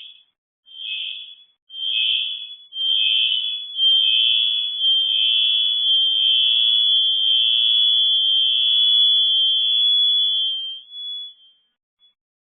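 High-pitched electronic alarm tone: short beeps about once a second that grow louder, then one continuous tone for about seven seconds that stops near the end.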